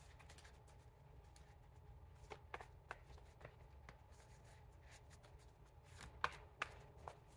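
Faint shuffling of a tarot deck by hand: soft card rustling with a few sharper snaps of cards, bunched about two and a half seconds in and again about six seconds in.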